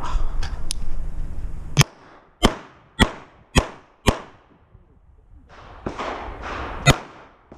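Handgun shots at close range: five quick shots about half a second apart starting about two seconds in, then one more a little before the end.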